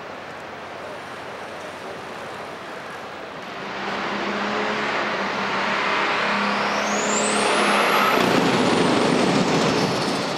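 International Harvester pulling tractor's engine running hard from about four seconds in, over steady background noise before it. A high whine climbs steeply, peaks about eight seconds in and then eases back down.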